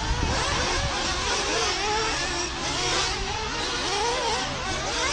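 Several 1/8-scale nitro RC buggy engines running flat out around a dirt track, their high whine rising and falling over and over as the buggies accelerate and brake.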